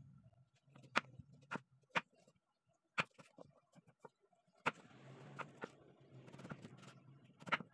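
Kitchen knife slicing chayote on a wooden chopping board: sharp, irregular taps as the blade cuts through and strikes the board, about eight in all, over a faint low hum.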